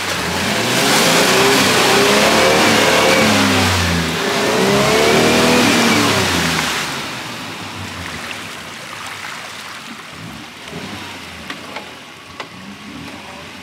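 Nissan Patrol 4WD bogged in deep mud and water, its engine revving hard in two long surges while the wheels churn and splash the water. After about seven seconds the revving stops and it drops to a quieter running sound with water sloshing and a few sharp clicks near the end.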